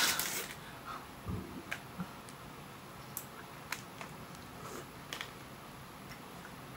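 Plastic ice-cream-bar wrapper crinkling briefly at the start as it is pulled open, followed by a series of faint, scattered small clicks and ticks.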